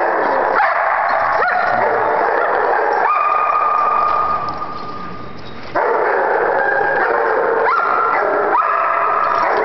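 Several dogs barking and yipping excitedly in play, the calls overlapping, with sharp rising yelps throughout. One long high whine is held a few seconds in.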